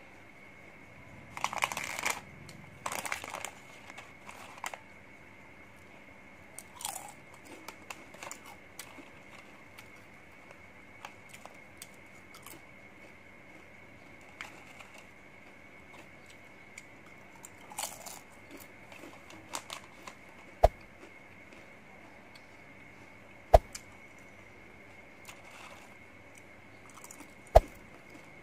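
Crisp purple chips crunched and chewed, with crinkling of the plastic tray and snack packaging, in scattered bursts. Three sharp clicks in the second half are the loudest sounds.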